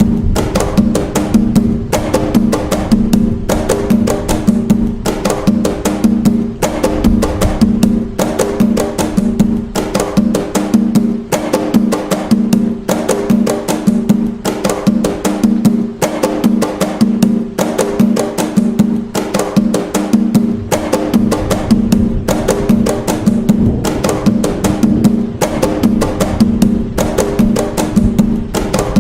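Atabaque drums playing the toque nagô, a fast, continuous, repeating pattern of drum strokes.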